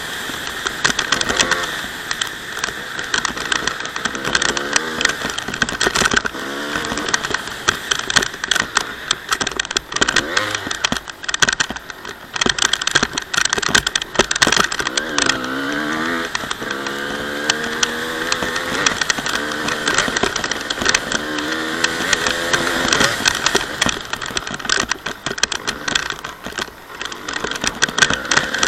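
Honda CR250 two-stroke motocross engine being ridden hard, its pitch rising and falling again and again as the throttle is opened and closed, with clattering throughout.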